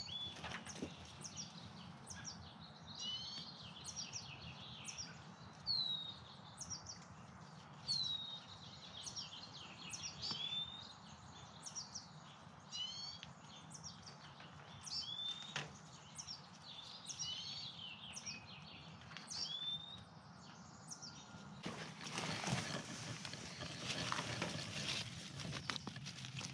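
Wild birds chirping and calling, with many quick, sweeping notes. Near the end there is close rustling and crackling of dry conifer needles and leaf litter as maple seedlings are pulled up by hand.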